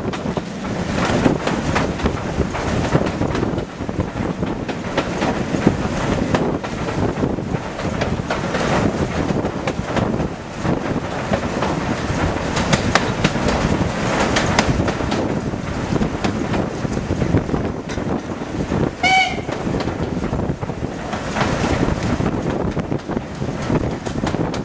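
Steam train hauled by S&DJR 7F 2-8-0 No. 53808 running downhill, its wheels clattering steadily over the rail joints with wind rushing past. A brief high-pitched tone sounds once, about three-quarters of the way through.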